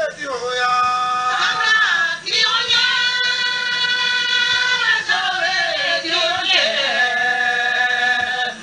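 A solo voice singing long, drawn-out notes, each held steady and then sliding to the next.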